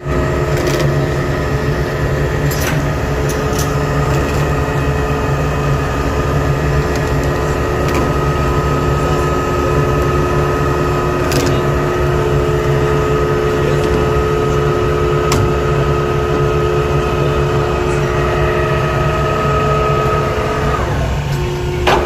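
Davit winch hoisting a ship's rescue boat on its wire fall: a loud, steady mechanical hum with a whine of several steady tones over it. Near the end, as the boat reaches the davit head, part of the whine stops and the rest drops in pitch.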